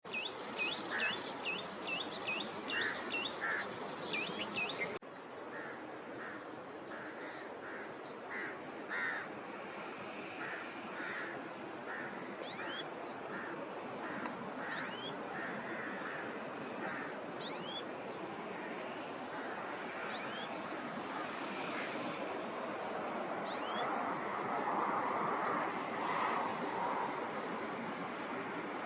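Outdoor nature sound of several small birds chirping and whistling over a steady high insect drone. It holds series of quick repeated chirps and several rising whistled calls. The sound changes abruptly about five seconds in.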